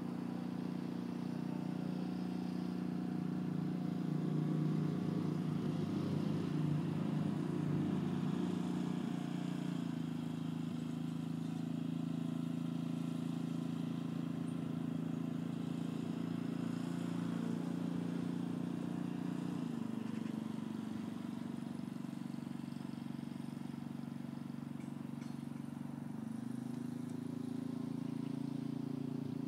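An engine running steadily with a low hum, its pitch stepping down and up a few times.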